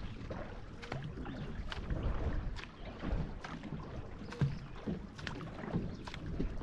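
Two paddlers driving a C2 marathon racing canoe: paddle strokes catching and splashing in the water about once a second, over a low rumble of wind on the microphone.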